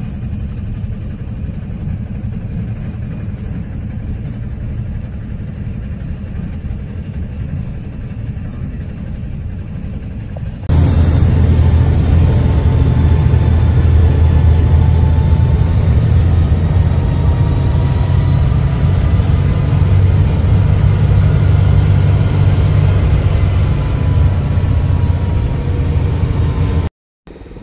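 A steady low rumble that jumps abruptly louder about eleven seconds in, with a faint wavering tone above it afterwards; it cuts out briefly near the end.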